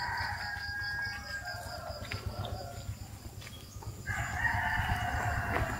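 Roosters crowing: one long crow at the start and a second about four seconds in.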